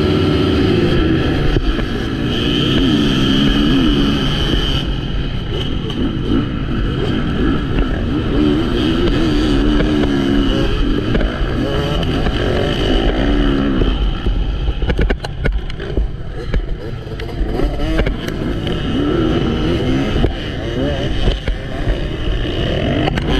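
MX1 motocross bike engines revving, their pitch repeatedly rising and falling as they accelerate and shift.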